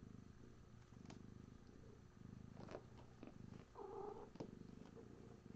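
Cat purring in steady phrases, about a second each, with a short mew about four seconds in and a few faint clicks.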